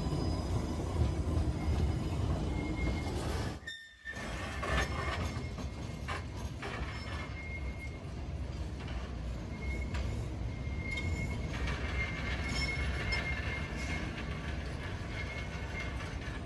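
Alstom Citadis 305 tram running on street track, a steady low rumble from the wheels and running gear. Brief high-pitched wheel squeals come and go through the second half. The sound drops out briefly about four seconds in.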